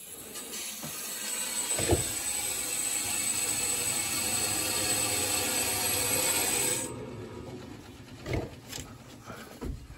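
Water rushing and hissing through the pipes as a shutoff valve is turned on to repressurise the new plumbing. The hiss builds over the first couple of seconds and stops abruptly about seven seconds in. There is a sharp knock about two seconds in and a couple of lighter knocks near the end.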